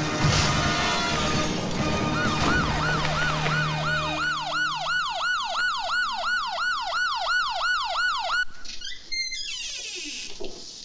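A crash with shattering glass, then an ambulance siren in fast yelp mode, about three rising-and-falling wails a second for some six seconds, which cuts off suddenly.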